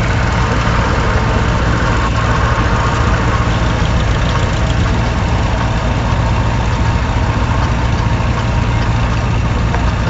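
Tractor engine idling, a steady low rumble that holds even throughout.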